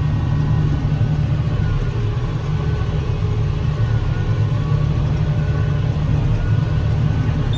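John Deere 6145M tractor's diesel engine running steadily, a deep continuous drone heard from inside the cab while pulling a working large square baler.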